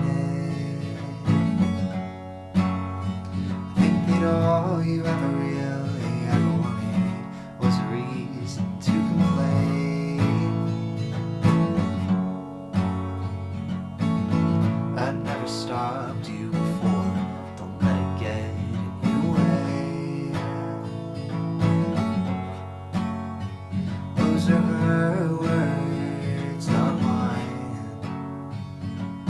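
Acoustic guitar playing the instrumental passage of a song, chords struck one after another.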